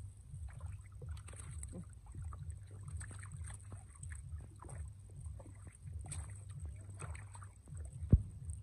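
Hands sloshing and splashing through shallow muddy water in small irregular splashes over a steady low rumble, with one sharp slap near the end.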